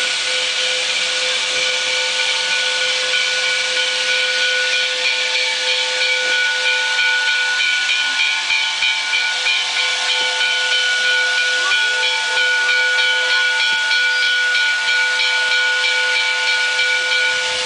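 Steam locomotive (former Canadian National 2-8-2 Mikado No. 3254) blowing off steam: a loud, steady hiss with a ringing whistle-like tone in it that holds unbroken the whole time, as from a lifted safety valve.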